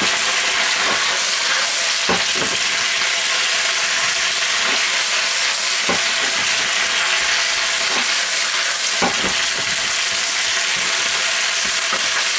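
Pak choi and onion sizzling steadily as they stir-fry in hot oil in a nonstick pan. A spatula scrapes and knocks against the pan a few times.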